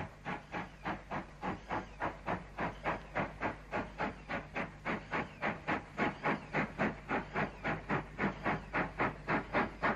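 Steam locomotive working hard, its exhaust beating out a steady, even chuff at about four beats a second and growing slightly louder near the end.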